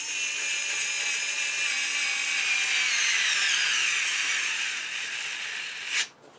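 Skil 4-volt cordless screwdriver's motor whirring as it drives a number 8 screw into solid pine. Its pitch sags gradually under the load, then it cuts off abruptly about six seconds in.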